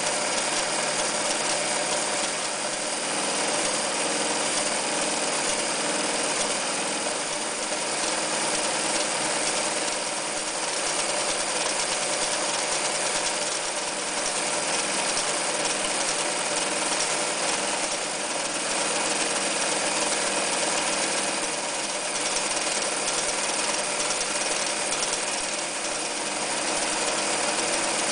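Janome New Home 551 electric sewing machine running steadily while stitching.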